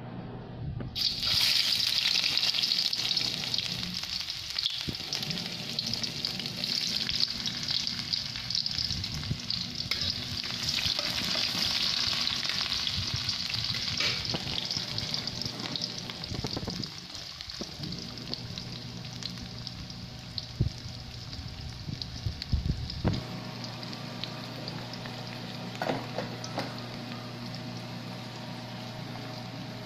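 Chopped onion and garlic sizzling in hot oil in a wok. The sizzle starts suddenly about a second in, loudest over the next few seconds, then settles to a steady fry with scattered clicks of stirring.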